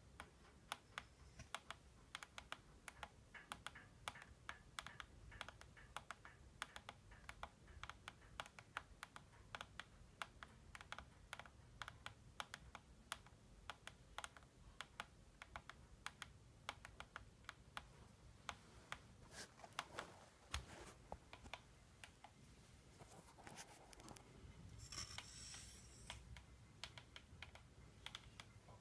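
Faint, irregular ticking clicks, several a second, from a Mikado Logo 550SX RC helicopter, with a short denser rustle about 25 seconds in.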